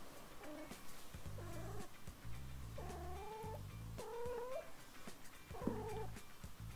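Female calico cat in heat yowling: a series of drawn-out, wavering calls, the longest near the middle, the call of a cat in heat.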